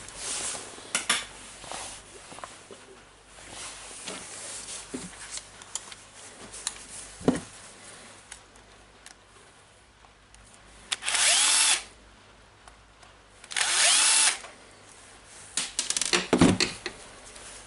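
A cordless drill-driver run twice in short bursts of under a second each, its motor whine rising and falling with the trigger. Light clicks and clatter of small parts being handled come and go around it.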